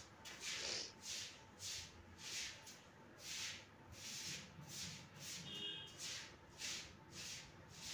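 Coloured pencil scratching on paper in a series of short back-and-forth shading strokes, about a dozen of them, each a soft rasp.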